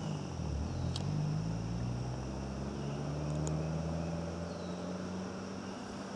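Low drone of a distant engine, its pitch drifting slowly, over a steady high-pitched whine, with two brief high ticks about one and three and a half seconds in.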